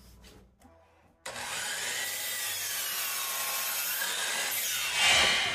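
A DeWalt miter saw starts up about a second in and its blade cuts through two stacked pine boards at once. The sound is a steady, loud run and is loudest near the end.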